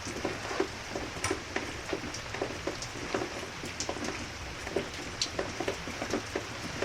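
Steady rain falling, with irregular ticks of drops striking a nearby surface.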